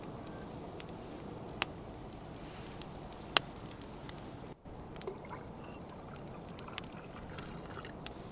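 Open wood campfire crackling, with scattered sharp pops over a steady background wash; the loudest pop comes about three and a half seconds in.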